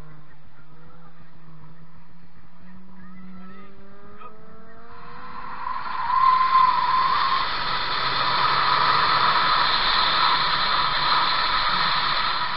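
Chevrolet Bolt EV pulling away on an autocross run: a faint electric whine rises in pitch, then about five seconds in a steady rush of wind and tyre noise takes over, with the tyres squealing briefly around six to seven seconds in.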